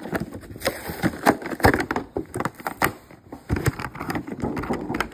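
Cardboard and clear plastic toy packaging being opened by hand: irregular rustling and crinkling with many sharp clicks as the box is pulled apart.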